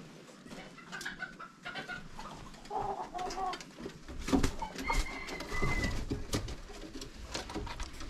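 Chickens clucking softly in short calls, mixed with scattered clicks and knocks, and a low rumble from about halfway.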